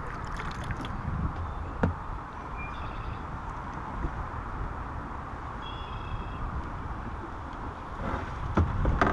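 Steady outdoor ambience on a lake from a kayak: wind rumbling on the microphone over water noise, with a single sharp knock a little under two seconds in and faint high chirps twice.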